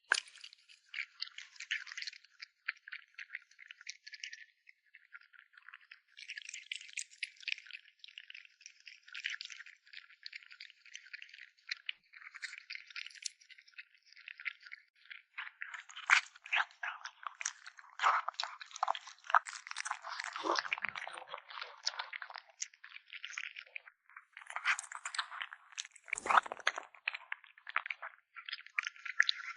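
Kitten chewing meat close to the microphone: runs of rapid clicks and crunches with short pauses.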